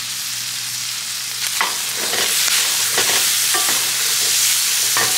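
Goat kidneys and onions sizzling in ghee in a wide metal pan, stirred with a wooden spoon that scrapes and knocks against the pan several times.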